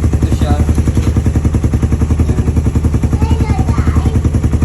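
Engine idling through a Smok power pipe aftermarket exhaust, a steady, even pulsing of deep exhaust beats at about nine a second.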